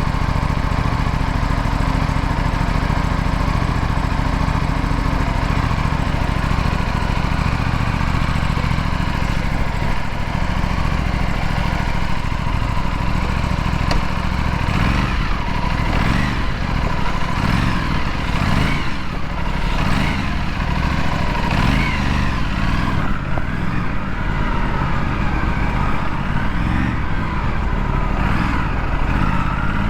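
Aprilia RS 457's parallel-twin engine running at a steady note, then revving up and down repeatedly from about halfway through.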